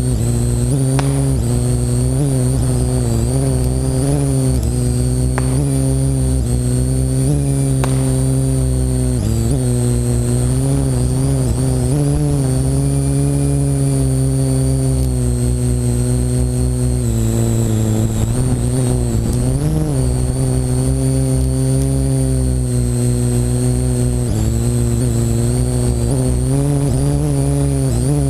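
Parrot AR.Drone quadcopter's motors and propellers buzzing up close, the pitch sliding up and down together as the throttle changes, with a thin high whine above and a low rumble underneath.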